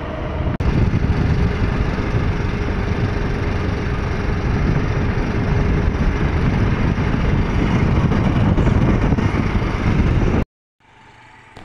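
Motorcycle riding along a road: wind rushing over the microphone mixed with the engine running at steady speed, a dense, even noise. It cuts off suddenly about ten seconds in.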